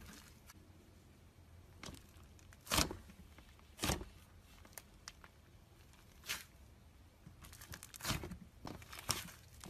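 Slime being squished, pressed and pulled by hand: sticky crackling and small air-bubble pops, with a handful of louder wet smacks and tearing pulls spaced unevenly through it.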